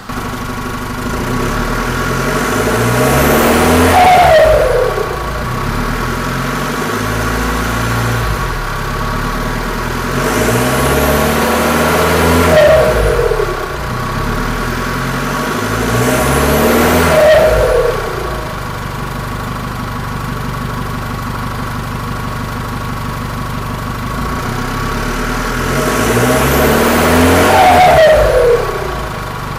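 Chevrolet S10 2.8 four-cylinder turbodiesel, its rear muffler removed, revved four times from idle and heard close to the exhaust outlet. A subtle turbo whistle falls in pitch as each rev drops back.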